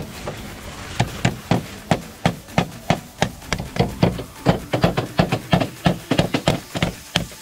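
Rapid series of hammer strikes, about three a second, starting about a second in: slate scales being nailed onto a chimney.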